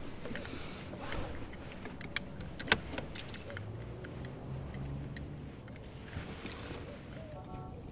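Car seatbelts being pulled across and buckled: webbing rustling and a few sharp latch clicks, the loudest about two and a half seconds in.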